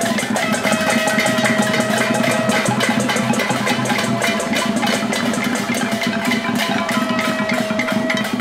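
A protest crowd making noise: fast, dense banging on drums and pots and pans, with a few steady held tones from noisemakers sounding over it.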